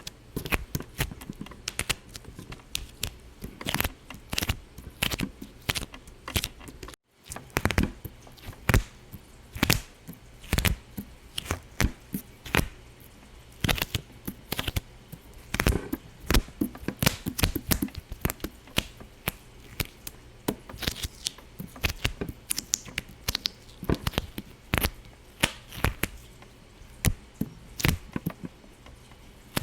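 A long run of sharp, irregular pops and clicks, several a second, cutting out completely for a split second about seven seconds in.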